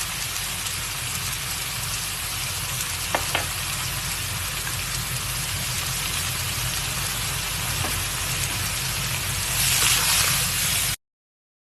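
Food sizzling in a hot wok during a stir-fry, a steady hiss with two short clicks about three seconds in. The sizzle swells briefly near the end, then cuts off abruptly.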